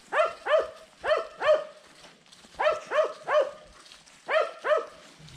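A dog barking in quick bursts: nine short barks in three runs of four, three and two.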